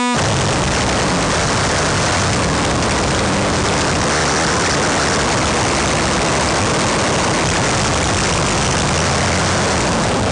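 Harsh noise music: a loud, dense wall of distorted noise filling the whole range with a low rumble underneath, steady and unbroken.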